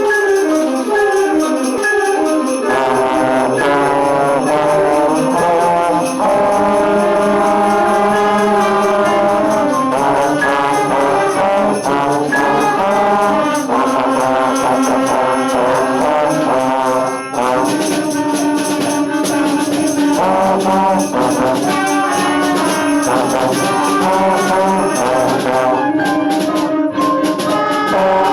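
Trombone playing a lively melody over a band accompaniment with jingling percussion, mixing short notes and held notes.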